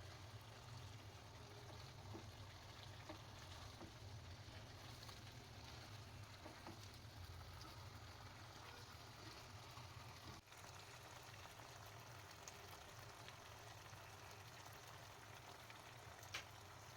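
Faint sizzling and bubbling of chicken cooking in oil in a pan, over a steady low hum. The sound breaks off briefly about ten seconds in, and there is a single click near the end.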